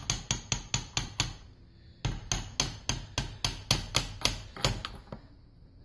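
Gentle hammer taps on the oil delivery sleeve of a 1955 Oldsmobile Hydra-Matic transmission, driving it down through a ring compressor clamped over its sealing rings. The taps come quickly, about four or five a second, in two runs with a short pause about a second and a half in.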